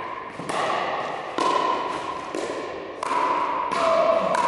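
Pickleball rally: sharp hollow pocks of paddles hitting the plastic ball, about six in quick succession, each ringing and echoing in a large hall.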